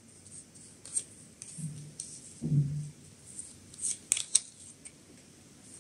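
Tarot cards being handled: crisp clicks and rustles of card stock sliding and snapping, loudest about four seconds in. A short low hum of a voice about two and a half seconds in.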